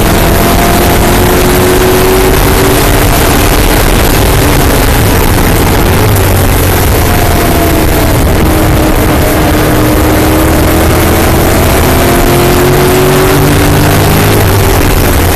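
Loud in-car sound of a TVR Griffith's Ford V8 racing engine under hard use, its pitch falling as the car slows for a corner and climbing again under acceleration, over heavy road and wind noise.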